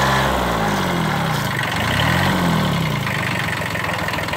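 Small compact tractor's engine working under heavy load as it pulls a hut that barely budges. Its revs start high and sag, climb again about two seconds in, then fall away.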